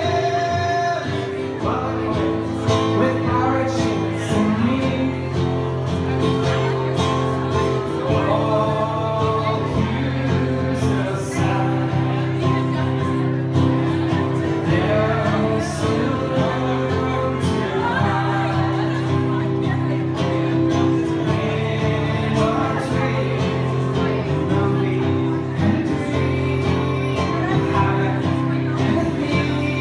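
A man singing a song while accompanying himself on an acoustic guitar, played live.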